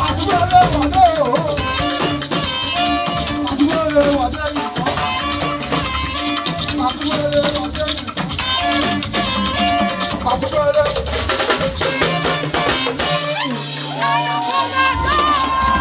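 A band playing upbeat music, with a shaker keeping a busy rhythm over drums and pitched instruments.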